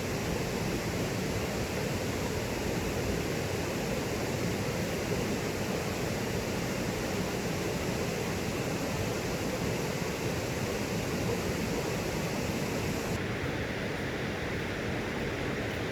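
Mountain stream water rushing and cascading over rocks into a pool, a steady full rush of sound without breaks.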